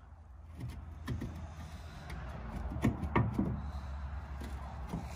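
A few light clicks and knocks from the old stove's metal parts being handled and tried for loose trays, over a steady low engine hum from a tractor idling outside to warm up.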